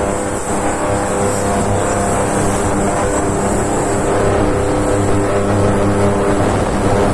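Ultrasonic cleaning bath running mid-cycle with a piston and rings in it: a loud, steady hum with a hiss over it.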